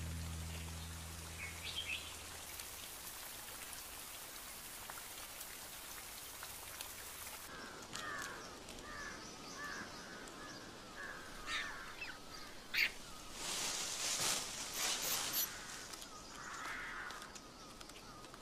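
Steady monsoon rain falling on forest foliage. After a sudden change about seven seconds in, a run of short repeated animal calls comes in, with rustling and snapping among branches and leaves, and another call near the end.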